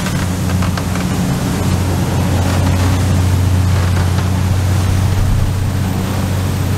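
A 69-foot Fairline motor yacht running at cruising speed: a steady, loud low engine drone, with the rush of its wake and wind over it.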